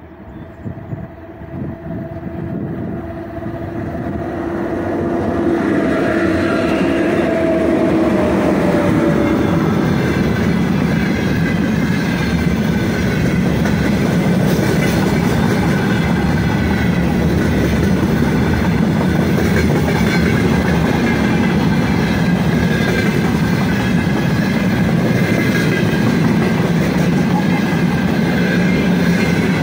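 A 3ES5K Ermak electric locomotive approaches and passes with a steady humming tone that dips in pitch and fades about eight seconds in. It is followed by a long loaded freight train of gondola and tank wagons rolling past, their wheels rumbling steadily on the rails.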